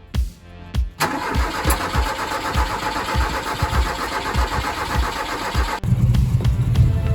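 Ford Capri Mk3 car engine starting: a loud mechanical noise begins suddenly about a second in, then changes abruptly near the end to a steady low running, with a music beat underneath.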